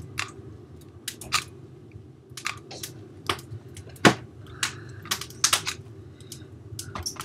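Irregular sharp clicks and knocks of a clear plastic airsoft gearbox being handled and turned over, the loudest a little after four seconds in, over a steady low hum.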